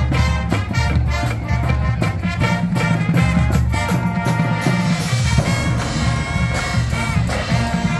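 Marching band playing its halftime show: horns with drums and front-ensemble marimbas and vibraphones. A driving, evenly struck beat fills the first half, giving way to long held chords from about halfway.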